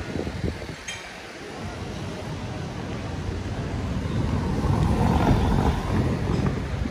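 A car passing close by, its engine and tyre noise swelling to a peak about five seconds in and then easing, over a steady hum of street noise.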